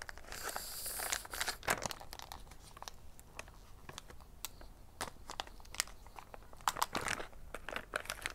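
Clear plastic wrapper on a tray of mochi rolls crinkling and tearing as it is pulled open by hand. Many irregular crackles, with a louder stretch of rustling about a second in.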